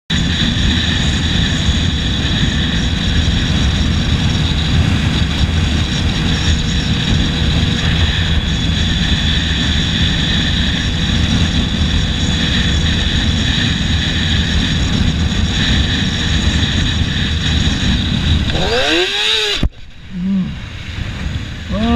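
Yamaha sport motorcycle ridden at speed: steady wind rush on the microphone over the engine's drone. Near the end the sound drops off suddenly, and the engine's pitch rises and falls a few times, quick throttle revs.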